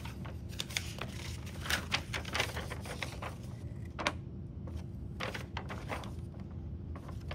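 Printed paper sheets being handled and rustled, with a run of crisp crinkles and light taps that thin out after about four seconds, over a low steady hum.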